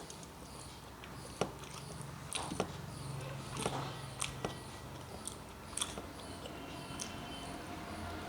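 Close-up eating sounds: a mouthful of rice and vegetables chewed wetly, with about eight sharp mouth clicks and smacks at irregular intervals.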